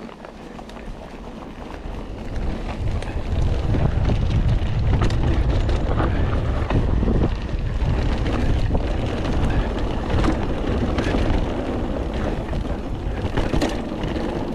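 Wind buffeting the camera microphone as a mountain bike picks up speed down a trail, building over the first few seconds and then holding loud. Scattered clicks and rattles from the bike come through it.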